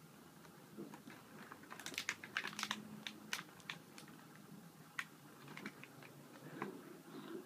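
A scatter of small sharp clicks and taps from border collie puppies at play, densest from about two to three and a half seconds in, then a few single clicks.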